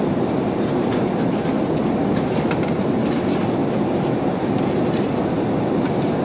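Steady low drone and hiss of a Boeing 787 Dreamliner's cabin in flight, from the engines and the air rushing past the fuselage, with a few faint clicks.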